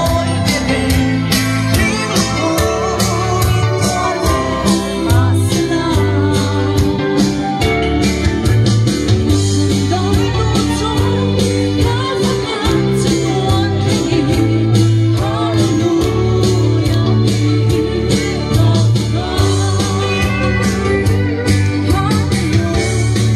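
A woman singing a Christian worship song through a handheld microphone and portable PA speaker, over amplified instrumental accompaniment with a steady beat and bass.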